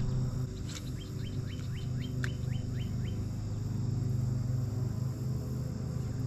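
A bird calling a quick run of about nine short notes, each sliding down in pitch, about four a second, over a steady low hum.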